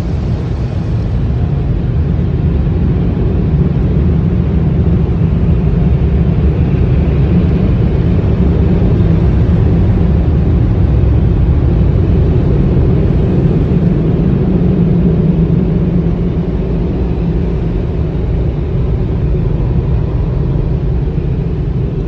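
Automatic tunnel car wash machinery (Motor City Wash Works and McNeil equipment) running, heard from inside the car: a steady, loud, deep rumble of equipment and spraying that swells a few seconds in and eases slightly near the end.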